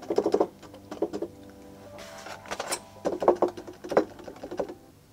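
Semi-weighted plastic keys of an Arturia KeyLab Essential 49 MIDI controller clacking and thudding as they are pressed, in about five quick runs of key presses.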